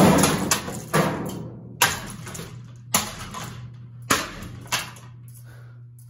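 Ceiling fan spinning, its damaged blades being struck in a series of loud knocks, about one a second, that die away about five seconds in, over a low steady hum.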